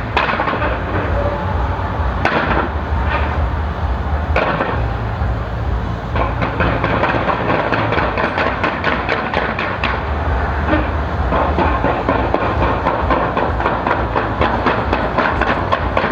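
Skyscraper fireworks display: a rapid, continuous barrage of bangs and crackles over a steady low rumble.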